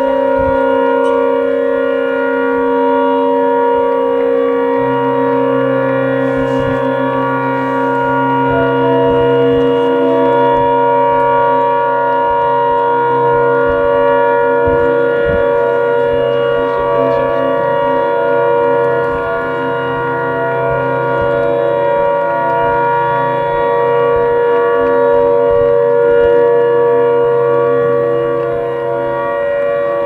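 Harland & Wolff shipyard siren sounding one long, steady note rich in overtones, the yard's old signal for the start and end of shifts. A lower hum joins about five seconds in and stops near the end.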